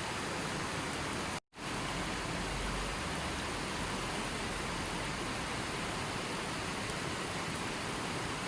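Steady, even rushing water noise, like heavy rain or falling water. It cuts out completely for a split second about a second and a half in, then comes straight back.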